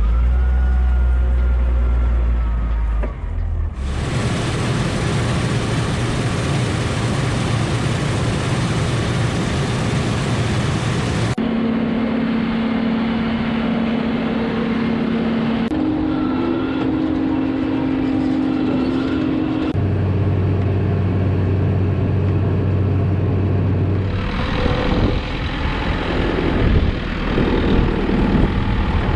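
Heavy farm machinery engines running in a series of abrupt cuts. It starts with a deep steady engine hum, then a long stretch of loud rushing noise. After that come steady engine drones whose pitch jumps at each cut, with some uneven knocking near the end.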